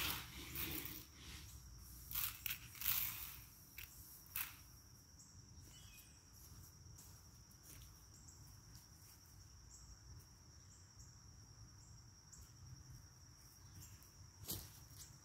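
A steady high-pitched insect drone, with a few sharp knocks in the first few seconds and another near the end, and light footsteps in dry leaf litter.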